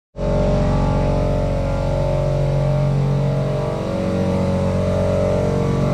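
A machine running steadily with a loud low hum made of several fixed tones, dipping briefly just before the middle.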